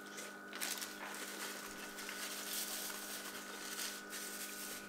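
Quiet chewing of a breaded spicy chicken nugget with a few soft, irregular crunches, over a steady low electrical hum.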